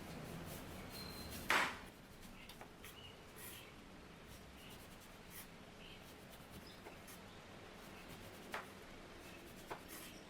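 Small objects being handled: scattered light taps and rubbing, with one sharp knock about a second and a half in and two softer knocks near the end.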